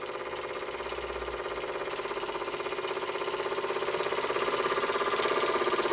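Albury Manor Mark IV model steam engine, a single oscillating-cylinder engine with a brass flywheel, running fast and very smoothly with a rapid, even beat that grows a little louder toward the end.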